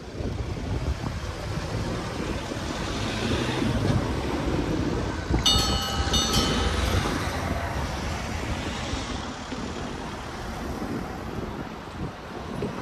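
Cars driving over a level crossing as its barriers go up, tyres rumbling past in two swells. About halfway through, the crossing bell rings briefly: two short tones.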